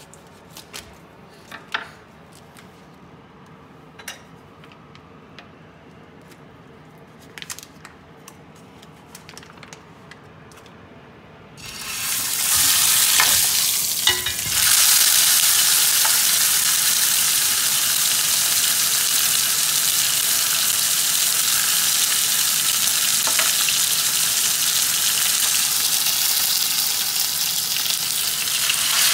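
Small clicks and rustles of kitchen scissors cutting open a meat package. About twelve seconds in, a loud, steady sizzle starts as raw beef steaks are laid on a hot grill pan. It dips briefly, then picks up again as the second steak goes on.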